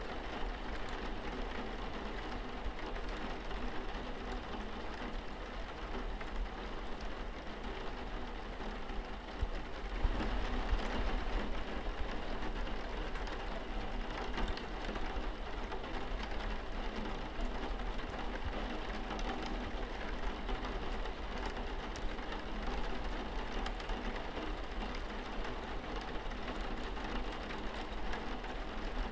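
Steady rain falling on a window pane, with a low steady hum underneath. It gets a little louder about ten seconds in.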